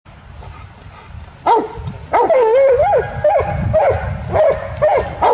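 Dog barking in a run of high, yelping barks starting about a second and a half in, one of them drawn out and wavering like a whine.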